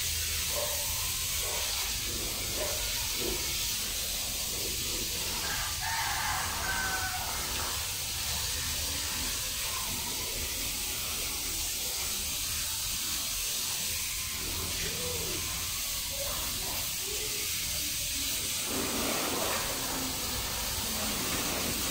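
Water spraying from a garden hose's spray wand onto a car's bodywork as the car is rinsed, a steady hiss.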